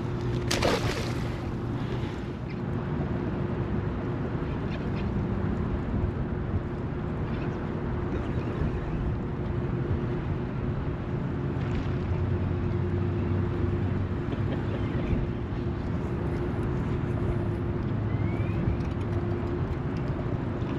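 Steady wind and moving-water noise around a small fishing boat, with a faint steady hum running under it until near the end. About half a second in, a short sharp splash as a bass is tossed back into the river.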